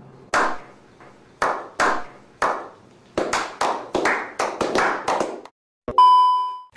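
Hand claps: a dozen or so sharp claps, spaced out at first and then coming faster and irregularly, which stop about five and a half seconds in. A single bright ding rings out near the end and fades.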